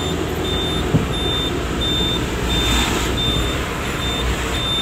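A vehicle's warning beeper sounds a high, steady beep, repeating evenly about one and a half times a second, over the low running of the engine.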